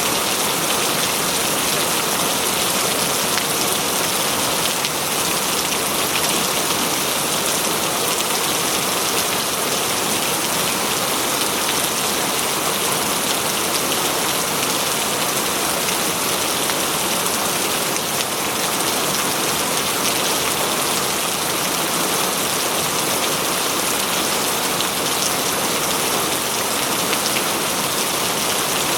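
Steady rain falling on leaves and ground in a forest, a continuous even patter with no thunder.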